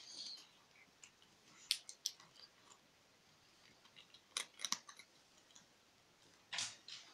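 A kitten eating dry kibble from a stainless steel bowl: faint, short crunches and clicks in a few scattered clusters.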